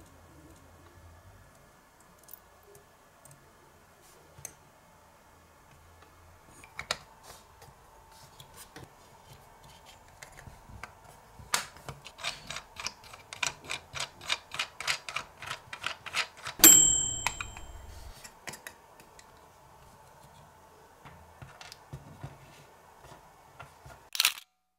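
Small plastic clicks of a miniature toy microwave being handled, then a quick run of microwave-timer ticks, about four or five a second, ending in a single bright 'ding' about two-thirds of the way in. A faint steady hum runs underneath.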